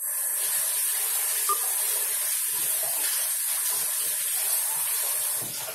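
Water running hard from a tap as hands are washed under it. It comes on suddenly at the start as a steady rushing hiss and stops shortly before the end.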